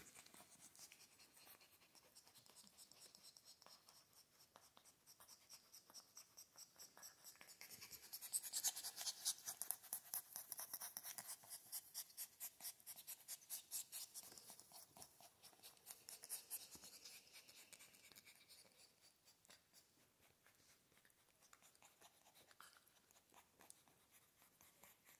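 Faint, quick, even scratching and rubbing of puppy fur and paws against a leather couch and a hand, loudest in the middle stretch, as two puppies wrestle.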